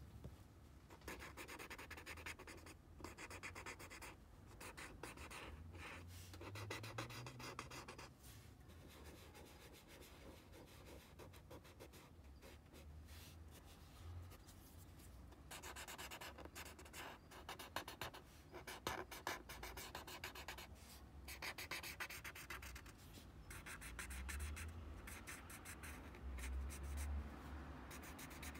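Paper tortillon rubbed back and forth over graphite pencil shading on a paper tile to blend it. The faint rubbing comes in spells of a few seconds with short pauses between.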